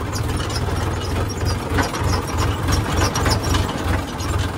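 Tractor diesel engine running at low speed with a pulsing throb, over a continual irregular clicking and rattling.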